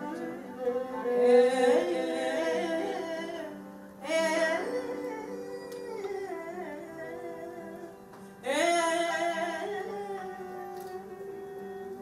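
Woman singing Carnatic-style melodic phrases with sliding pitch, accompanied by violin over a steady low drone. Three phrases begin at about one, four and eight and a half seconds in; each comes in loud and then fades.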